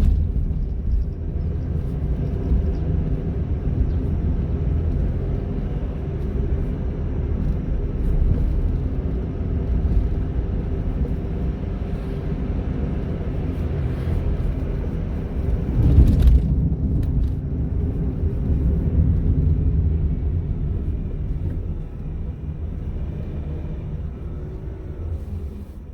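Honda N-ONE kei car driving: steady engine and road rumble heard from inside the cabin. About sixteen seconds in there is a brief, louder bump.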